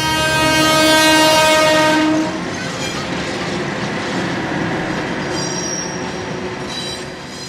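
A train horn blaring with a steady chord for about two seconds, then cutting off into the rumble of the train passing close by, with brief high wheel squeals from the rails.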